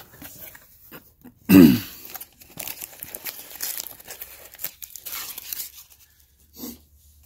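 Foam packing peanuts rustling and squeaking against cardboard as hands pull them out of a box, with foil-wrapped trading-card packs crinkling as the hands dig in among them. About a second and a half in, one brief loud sound that drops in pitch.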